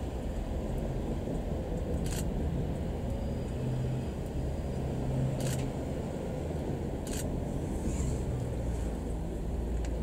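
KiHa 40 series diesel railcars running, a steady low diesel rumble, while one railcar rolls slowly to a stop. There are three short hisses, about two, five and a half and seven seconds in.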